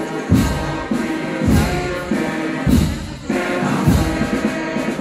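Crowd singing together over music, with a heavy bass drum beat about once a second.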